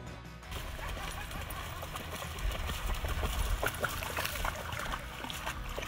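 A dog running through shallow water over a flooded dock, its paws splashing with many small quick slaps.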